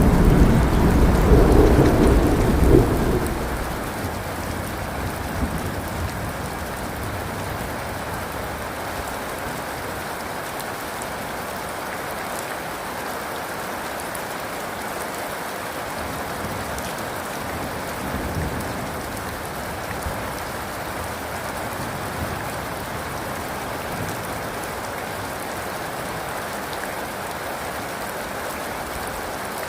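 Heavy rain falling steadily, with a deep thunder rumble that dies away over the first few seconds.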